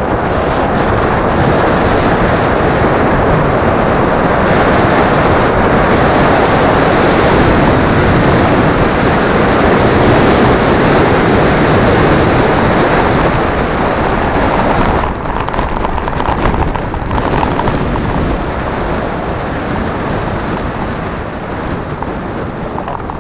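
Steady rushing noise of wind on a body-worn microphone mixed with tyres rolling over a rough forest trail during a mountain-bike ride. It eases a little about fifteen seconds in.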